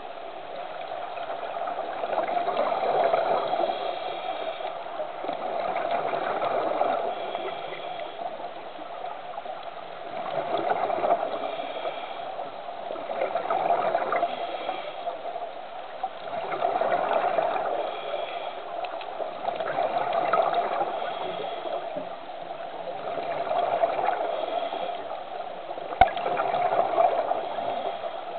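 Muffled underwater rushing and gurgling of seawater that swells and fades about every three seconds, with a couple of sharp clicks near the end.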